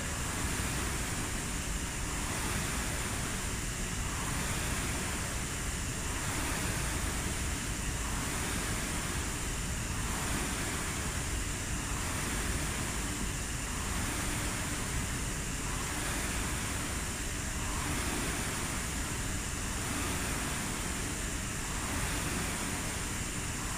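Air rowing machine's fan flywheel whooshing, surging with each drive stroke about every two seconds as someone rows at a steady pace.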